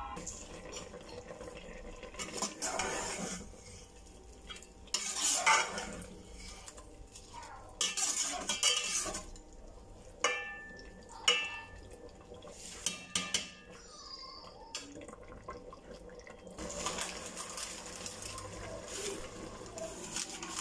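Metal ladle stirring rice and vegetables in an aluminium cooking pot: irregular scraping with several sharp clinks of metal on metal.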